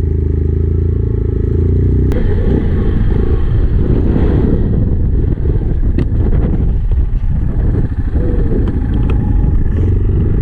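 ATV engine running close by, steady at first and then working unevenly under changing throttle, with a few sharp knocks in the second half.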